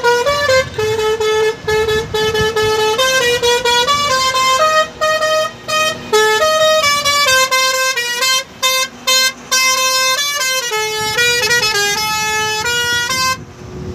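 A truck's musical horn playing a rapid tune of stepped notes, loud and with short breaks between phrases, cutting off suddenly near the end.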